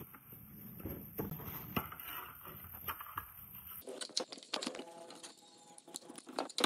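A small brush scrubbing a water-pump motor's finned metal housing in a shallow pan of cleaning solvent: quick, scratchy strokes with splashes of liquid. Before that come light knocks and sloshing as the housing is handled in the liquid.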